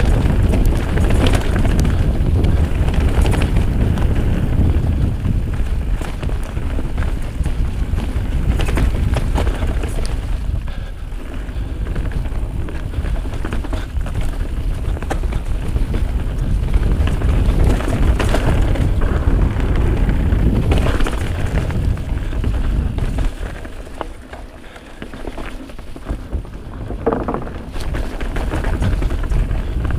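Wind rushing over the camera microphone as a Giant Trance Advanced full-suspension mountain bike descends a dirt trail, with tyre rumble and frequent knocks and rattles from the bike over bumps. The noise drops briefly about three quarters of the way through, then picks up again.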